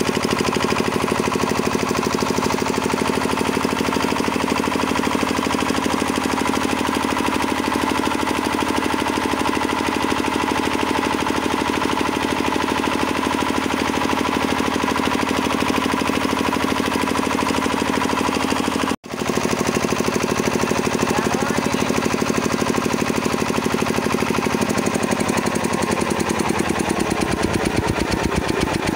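Kirloskar diesel generator engine running steadily with a fast, even knocking beat. The sound drops out for an instant about two-thirds of the way through, and the engine's note shifts near the end.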